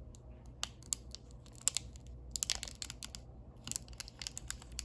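Foil trading-card booster pack wrapper crinkling and tearing as it is opened by hand, in scattered crackles and sharp clicks that bunch up about halfway through and again near the end.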